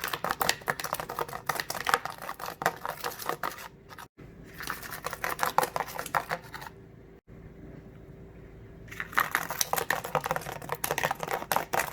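Ping pong balls covered with Velcro strips being shaken, rattling with rapid clicks as they knock together and against their container, in three bouts with quieter pauses between.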